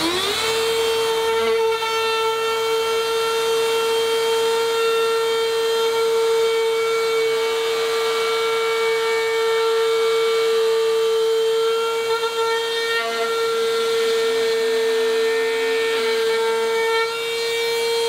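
Parkside PRSA 20-Li A1 cordless 20 V rotary drywall cutter spinning up with a quick rising whine, then running at a steady high whine as its 1/4-inch cone bit cuts a slot through plasterboard.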